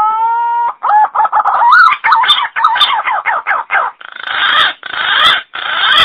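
Green pigeon (punai) song played as a lure call: a long rising whistle, then a fast run of wavering whistled notes, ending in three harsh, rasping notes.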